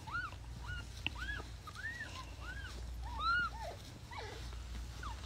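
Newborn kitten mewing: a run of short, thin, high squeaks that rise and fall, about two a second, the loudest a little past the middle.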